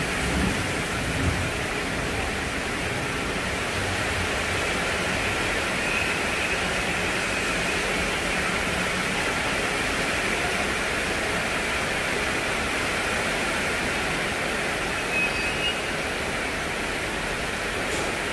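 Steady, even rushing hiss throughout, with a train's low rumble dying away in the first couple of seconds.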